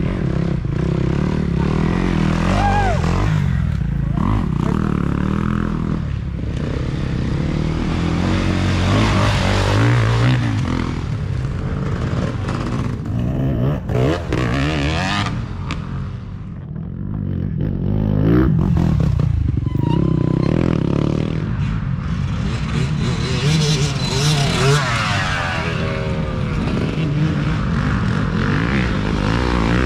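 Off-road dirt bike engines revving up and backing off as riders pass one after another, each swelling as it nears and fading as it goes.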